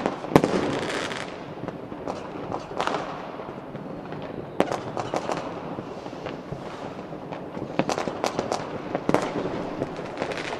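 Fireworks display: irregular bangs of bursting shells over constant crackling. The loudest bang comes about half a second in, with more clusters of bangs around the middle and later on.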